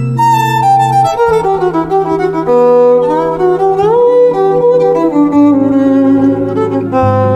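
Violin playing a jazz melody with slides between notes, over long held low notes from the accompanying band.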